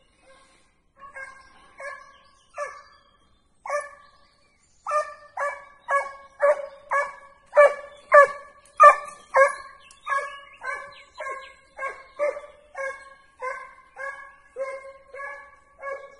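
Segugio hound baying, giving tongue while working a hare's trail: short, high-pitched bays, a few scattered at first, then a steady run of about two a second from about five seconds in.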